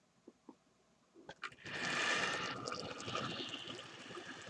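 Model train running on the layout track: a few clicks, then a rushing, hissing noise that starts about a second and a half in and slowly fades.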